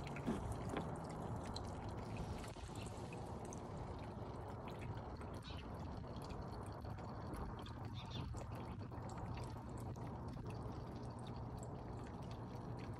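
A backyard fountain's thin stream of water trickling off a rock edge and running down the fountain face, a steady faint trickle with scattered small drips.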